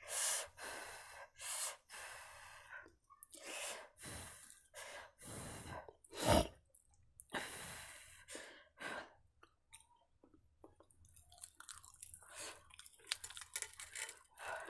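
A person chewing and eating a hot egg dosa by hand, with soft wet mouth sounds and small crunches coming in irregular bursts. One louder knock about six seconds in.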